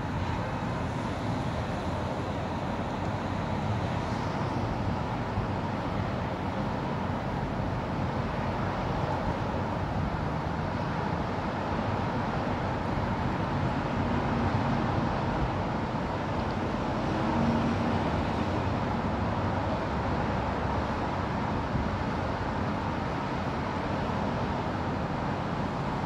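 Steady wash of distant road traffic from a multi-lane road below, swelling slightly now and then as vehicles pass.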